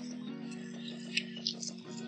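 Background music of held, gently changing chords, with a few short sharp clicks about a second in.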